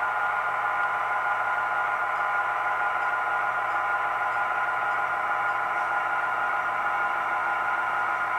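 Model diesel locomotive's onboard sound running steadily: a thin, even engine drone made of several steady tones with little bass.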